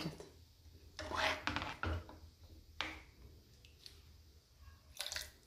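Steel ladle stirring thick curry gravy in a pan: a few faint, short scrapes and soft knocks against the pan, with one sharper click.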